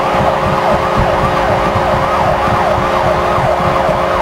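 Arena goal celebration after an overtime winning goal: a goal horn holding a steady low chord while a siren wails rapidly up and down, about three sweeps a second, over a loudly cheering crowd.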